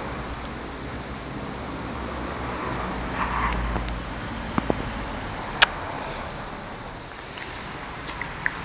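A few sharp clicks, the loudest a little past halfway, as a monk parakeet's beak works at a child's teeth through the cage bars, over a steady background rumble that swells briefly in the middle.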